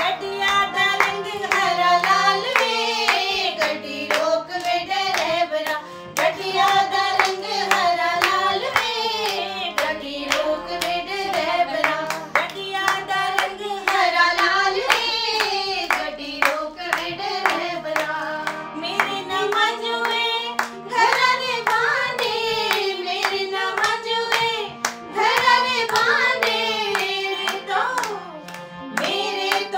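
Women's voices singing a gidda folk song, with hand clapping in a steady beat.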